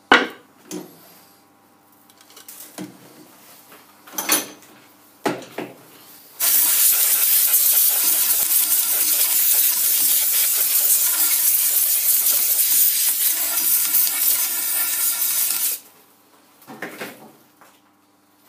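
A few scattered metal clinks and knocks, then a compressed-air blow gun hissing steadily for about nine seconds as it blows swarf out of a four-jaw lathe chuck; it stops abruptly.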